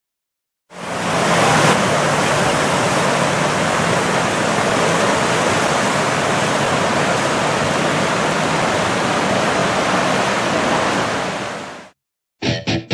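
River rapids rushing steadily as whitewater. The sound comes in suddenly about a second in and fades out near the end.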